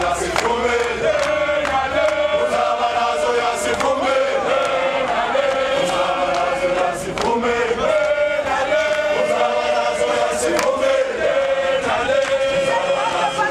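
A large crowd of marching police officers singing a protest chant together, many voices holding a steady tune, with sharp clicks scattered through it.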